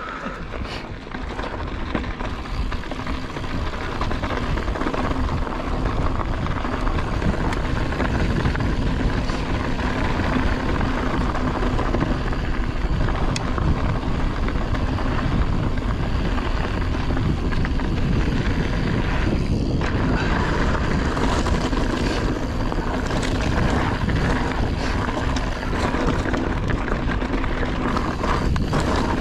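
Wind rushing over an action camera's microphone and mountain bike tyres rolling over a rocky dirt trail, a steady rumbling noise that builds over the first few seconds as the bike picks up speed, then holds.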